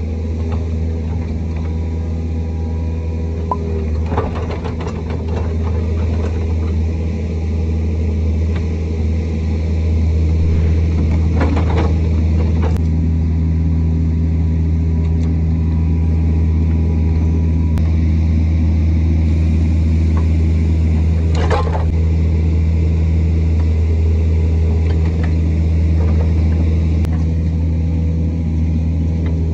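Excavator's diesel engine running steadily under load, getting louder about ten seconds in, while the bucket pushes and grades loose dirt, with a few short clunks and scrapes from the bucket.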